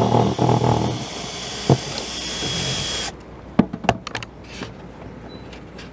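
Hitachi 18 V cordless drill/driver with a socket, spinning out a lag bolt. The motor runs loudly at first, then lighter and higher for a couple of seconds as the bolt comes free, and stops about three seconds in. A few sharp clicks of metal on the bolt and socket follow.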